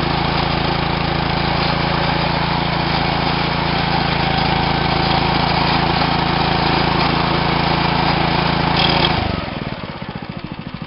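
Small gas engine of a walk-behind wire-burying machine running steadily under load as it cuts a slot to lay dog-fence wire. About nine seconds in, the engine note drops away to a quieter, uneven pulsing.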